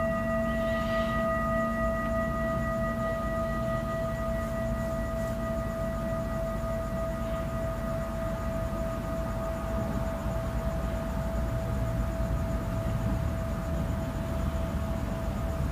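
Metal singing bowl ringing with one long, steady tone and fainter higher overtones, after being struck.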